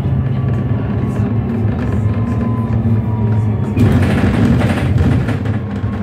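Inside a Switch Mobility MetroCity battery-electric single-deck bus on the move: a steady low hum and rumble of running gear and road noise with a faint thin motor whine. About four seconds in, it grows louder and rougher for a second or two.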